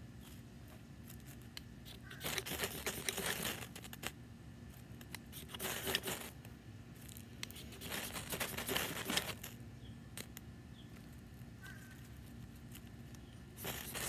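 Knife spine scraped hard along a ferrocerium rod in four bouts of quick scrapes, showering sparks onto wood shavings that fail to catch without fat wood.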